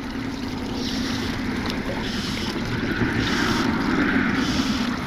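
Steady wind noise on the microphone, with four or so short hissing swishes of fly line being stripped in by hand while a hooked bluegill is played on a fly rod.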